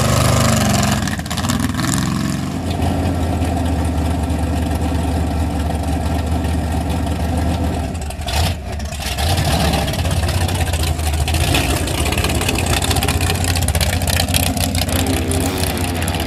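Engine of a lifted 1940s Chevrolet mega truck running at a steady pitch as it drives slowly on giant tires through mud, with a brief drop in level about halfway.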